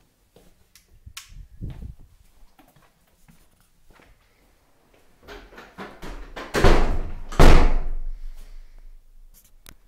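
A soft thump about two seconds in, then two loud knocks about a second apart in the middle, with scraping or rubbing around them that fades away.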